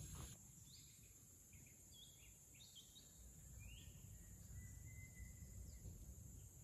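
Faint natural ambience with a few short, scattered bird chirps over a steady, high insect drone.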